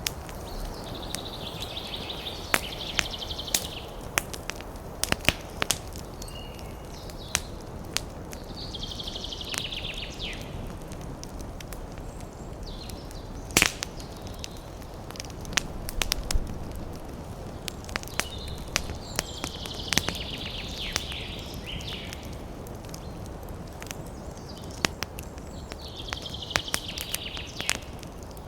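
Wood fire crackling, with sharp pops scattered throughout over a low steady rush and the loudest snap about halfway. A higher hiss comes and goes for a second or two several times.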